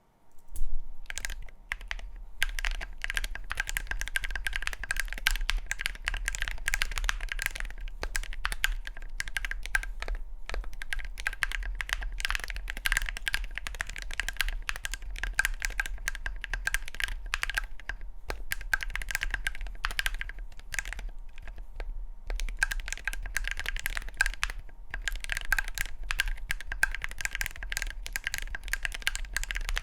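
Continuous typing on a Cerakey Peak60 ceramic-case keyboard with lubed Gateron Magnetic Jade Delta Dark switches and ceramic keycaps: a dense run of keystroke clacks, broken by two short pauses, about a third and two-thirds of the way through.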